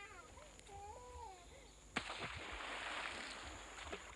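A dog gives one short whining call, rising and then falling, about a second in. About two seconds in comes a single sharp crack, followed by about two seconds of hissing, rushing noise that fades out.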